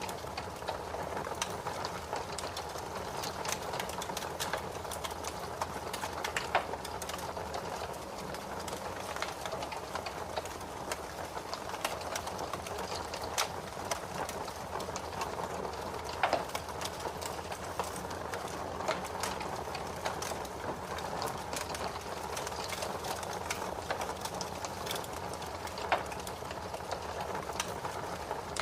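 Fireplace fire crackling: a steady hiss of burning with frequent small snaps and a few louder pops scattered through.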